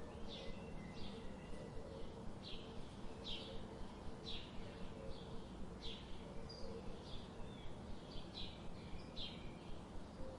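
Small songbirds chirping: short, high, quickly falling chirps repeating irregularly, about one or two a second, over a steady background hiss.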